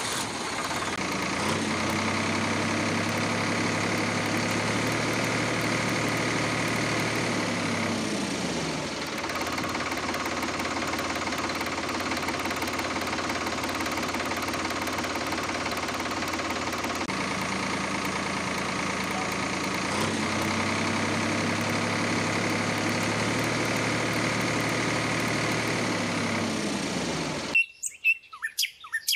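Tractor engine running steadily, its low hum sagging down in pitch twice, with birds chirping. The engine cuts off suddenly near the end, leaving only bird chirps.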